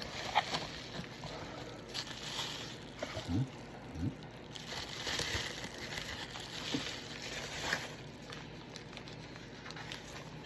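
Rustling and crinkling of packaging as a shipping box is opened and its wrapping handled, with scattered small knocks and clicks.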